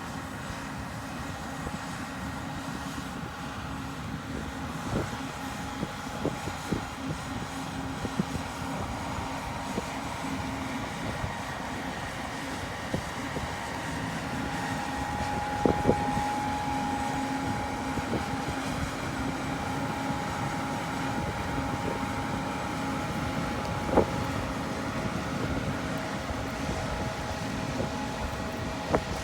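Large diesel farm machine running steadily under load, a constant engine drone with whining tones; a higher whine joins about halfway through, and a few sharp knocks stand out.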